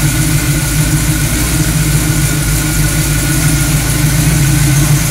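1968 Camaro's carbureted engine idling steadily.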